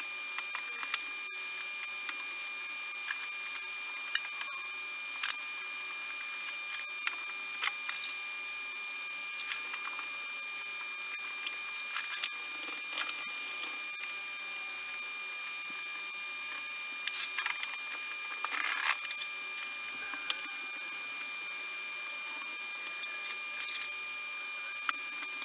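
Clay bar and lubricant spray being worked by hand over a car's painted door panel: scattered short rubbing, clicking and spritzing sounds, busiest about two-thirds of the way through, over a steady hiss with a faint high whine.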